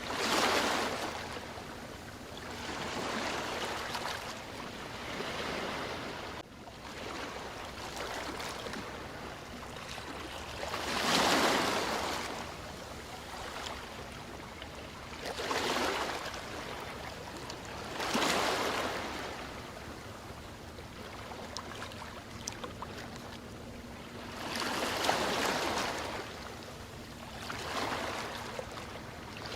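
Ocean waves washing onto a shore: a steady hiss of surf with waves swelling and fading every few seconds at uneven intervals.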